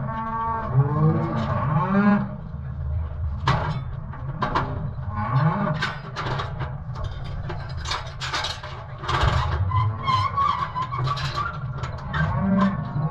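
Calves bawling, with a few calls in the first two seconds and one more near the end, amid repeated sharp knocks and clanks and a steady low rumble.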